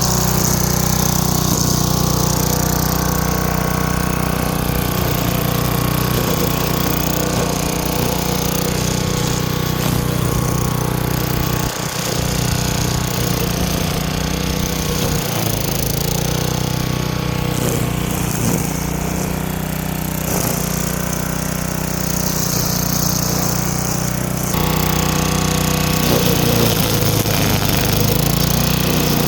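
Craftsman wheeled string trimmer's small gas engine running steadily at cutting speed while its nylon line cuts weeds, dipping briefly once about twelve seconds in. The engine now runs properly after a new spark plug, a cleaned carburettor and fresh gas.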